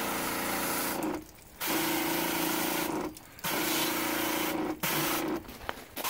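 Pressure washer spraying the outdoor heat-pump unit to wash dirt and film off its coil: a loud hiss of water with the pump's steady hum beneath, in about four bursts with short breaks as the trigger is released and squeezed again.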